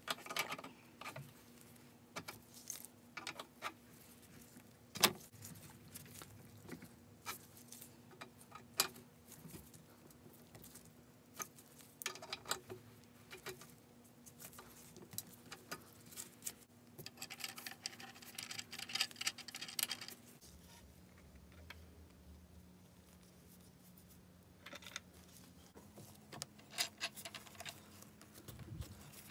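Adjustable wrench clinking against a nut and bolt on a small steel frame as a fastener is tightened by hand, with scattered light taps and handling clicks. One sharper click comes about five seconds in, and a denser run of clicks between about 17 and 20 seconds in.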